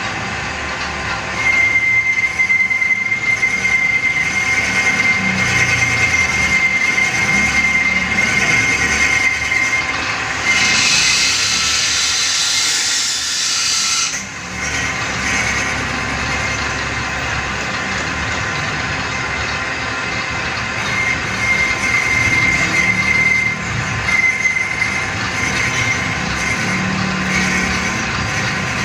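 Metal lathe cutting an engine block head, the cutting tool squealing against the metal in one steady high whine that stops about three-quarters of the way through. A harsher hiss joins in for a few seconds near the middle.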